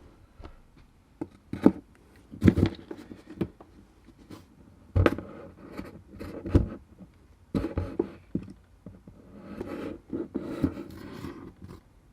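A cat thumping and scraping as it moves about and pounces: a string of irregular knocks with rubbing and scratching between them, the loudest about two and a half, five and six and a half seconds in.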